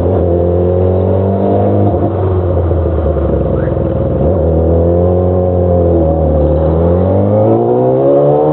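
Motorcycle engine and exhaust running steadily while riding, easing off about six seconds in, then picking up revs again near the end.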